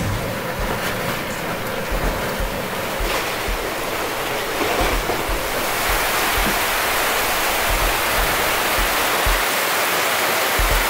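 Wind and rain of a squall rushing over choppy open sea, a steady hiss that grows a little louder about halfway, with wind buffeting the microphone.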